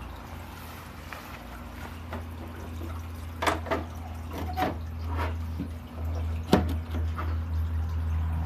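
Water dripping and plopping: a handful of separate drops from about three seconds in, over a low steady hum that grows louder about six seconds in.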